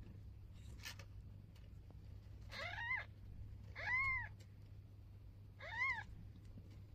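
Cat meowing: three short, high mews a little over a second apart, each rising and then falling in pitch, over a steady low hum.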